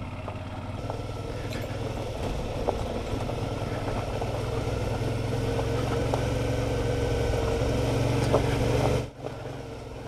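2019 Suzuki V-Strom 650XT's V-twin engine running steadily on a rough gravel road, growing gradually louder, then dropping away sharply about nine seconds in. A few light ticks sound along the way.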